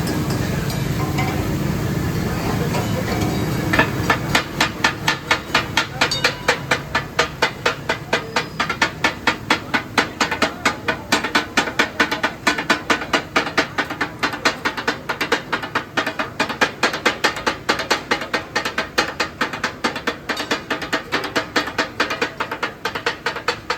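Metal spatulas striking a hot iron tawa in a fast, steady rhythm, chopping and tossing katakat offal. Sizzling frying comes first, then the clatter starts about four seconds in.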